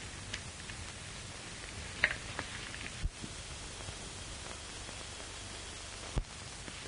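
Steady hiss of an old 1930s optical film soundtrack with no dialogue, broken by a few faint clicks and two short low thumps, about three seconds in and near the end.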